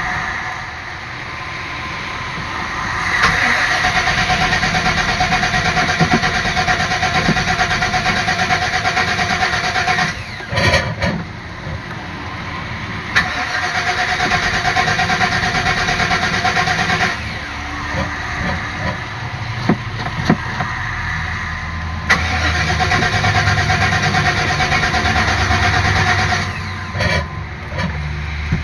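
A van's starter motor cranking the engine in three long attempts of several seconds each, with short pauses between them, and the engine not catching: the van won't start.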